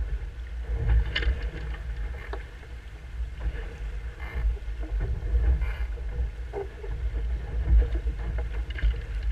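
Wind buffeting the hull-mounted camera's microphone as a Musto Skiff sails downwind, with a constant low rumble and water rushing along the hull. Short splashes of spray come every second or so.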